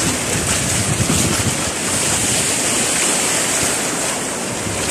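Small sea waves washing and breaking in shallow water, a steady hiss, with wind buffeting the phone's microphone in low gusts, strongest in the first second or so.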